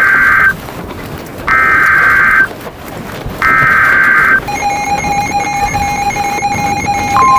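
Emergency Alert System SAME header: three loud bursts of digital data tones, each about a second long with about a second's gap between them. A pulsing, beeping electronic alert tone follows, and a steady single alert tone begins near the end.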